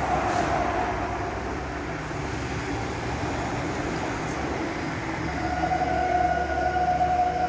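Toyota Alphard giving off a steady whining tone while in reverse: the reversing noise whose cause is in question. About five seconds in, the tone grows stronger and a second, higher tone joins it.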